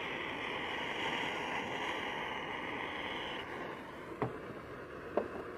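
Gas blowtorch hissing steadily while it heats a solvent-welded PVC fitting to soften the joint, shut off about three and a half seconds in. Then a couple of light clicks.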